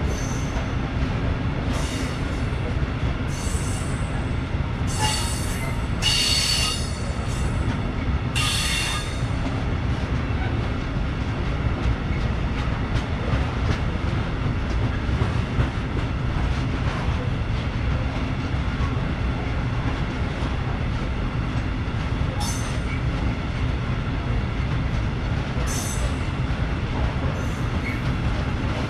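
Freight train of open coal wagons rolling past: a steady low rumble of wheels on rail, with brief high-pitched metallic squeals several times in the first ten seconds and twice more near the end.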